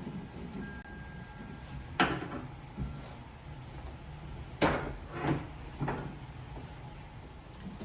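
A series of sharp knocks and clunks of a kitchen cabinet door or fittings being handled: four strikes, the loudest about two seconds in and near the five-second mark.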